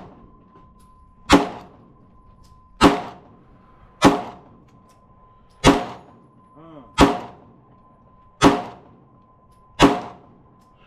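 Seven pistol shots fired at a steady pace, about one every second and a half, each with a short echoing tail.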